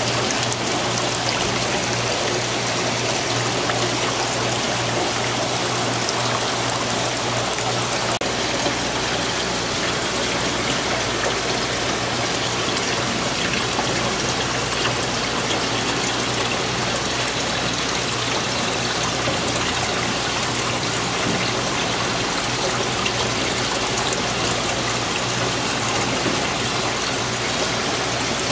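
Aquarium water circulating and trickling steadily, with a constant low hum from the tank's pump.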